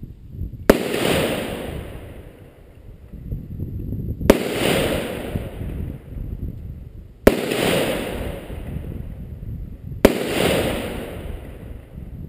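Four single shots from an M4 carbine (5.56 mm), about three seconds apart, each followed by a rolling echo that fades over a couple of seconds.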